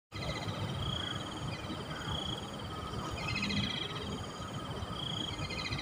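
Insects chirping: short buzzy trills repeating about every second and a half, four times, over a steady low rumble of outdoor background noise.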